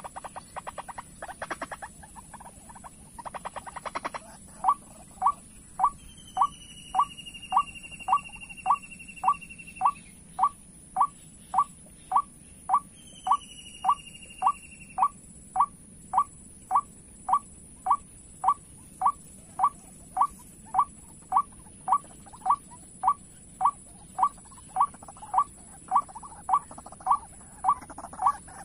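White-breasted waterhen calling: a monotonous, evenly spaced series of short, loud notes, nearly two a second, starting about four seconds in after a few quicker notes. Twice a long, slowly falling high whistle sounds over it, and a steady very high-pitched tone runs throughout.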